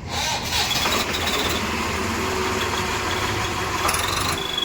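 Swaraj 735 tractor's diesel engine catching right at the start and then running steadily. A turbo-whistle insert fitted in the silencer adds a thin, high whistle that comes and goes over the engine.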